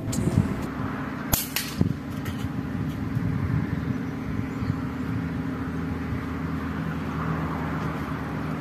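Slingshot being shot: its rubber bands released with a couple of sharp snaps about a second and a half in, over a steady low background rumble.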